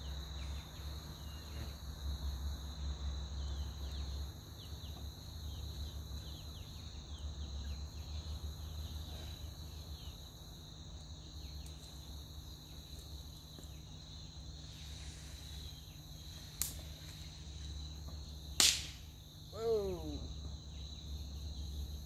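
Insects trill steadily at a high pitch throughout. A light snap comes about 17 seconds in and a louder sharp snap just under 19 seconds, followed at once by a short voice-like sound that falls in pitch.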